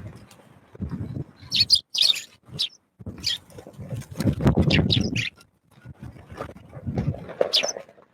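Small birds chirping in short, high calls, in several clusters. Low, gusty rumbles of strong wind buffet the microphone between and under the calls.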